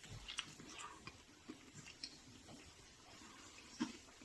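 A person chewing a bite of Mexican pizza: faint wet chewing and small mouth clicks, with one sharper click near the end.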